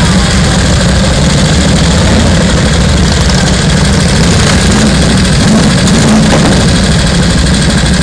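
Several heavy police motorcycles idling close by: a steady, loud, low engine rumble with no revving.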